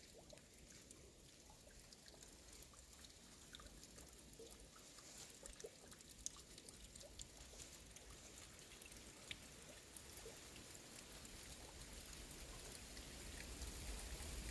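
Faint trickling water with many small scattered ticks and drips, slowly growing louder.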